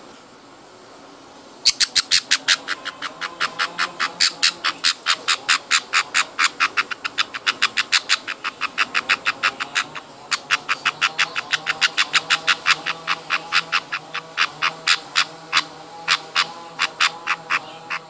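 Baby budgie chick giving its begging call while being hand-fed formula from a syringe: rapid, rhythmic squeaky chirps, about five a second, starting about two seconds in, with a short break around the middle.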